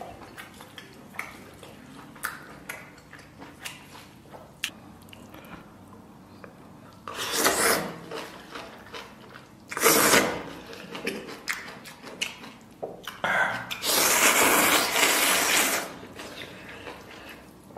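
Instant noodles being slurped, three times, the last a long pull of about two seconds and the loudest, with wet chewing and small clicks in between.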